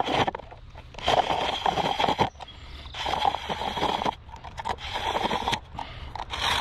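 Plastic water bottle being pulled through a plastic-bottle rope cutter, its blade slicing off a continuous strip of plastic: crinkly scraping and crackling in about five pulls, each roughly a second long, with short pauses between them.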